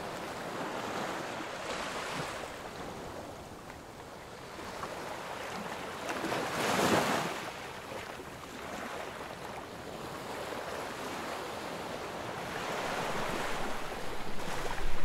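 Sea water washing along the hull of a sailing yacht under sail with its engine off, mixed with wind on the microphone. The rush swells and fades, with one louder surge about seven seconds in.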